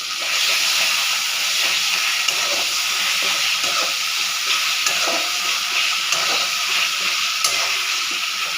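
Chicken kosha sizzling steadily in mustard oil in a pan as it is stirred, with a few sharp clicks.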